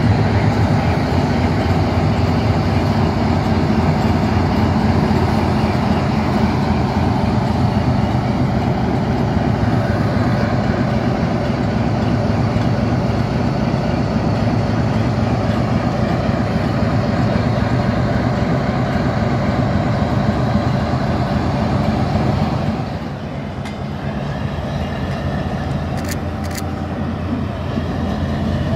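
Class 60 diesel locomotive's eight-cylinder Mirrlees engine running steadily with a deep, even throb, heard close by from the platform. It drops somewhat in loudness for a few seconds near the end.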